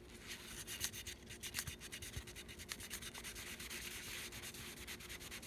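Paper towel damp with non-acetone nail polish remover rubbing over an aluminum AR-15 lower receiver: a quick, continuous run of scratchy wiping strokes as excess paint is cleaned off the colour-filled engravings.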